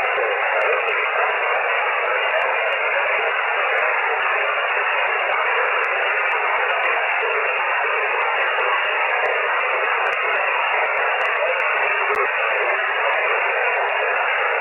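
Shortwave amateur radio receiver on single sideband giving a steady, even hiss of band noise through its narrow voice filter, with no readable signal on the frequency.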